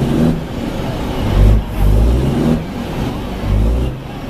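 Volvo truck's diesel engine with an open, straight-through exhaust, revved in repeated surges a second or so apart through triple chrome tailpipes.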